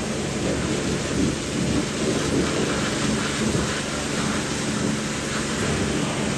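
Water from a hose spraying and splashing over a foam-covered car engine bay, a steady rushing noise, with a steady low machine hum underneath.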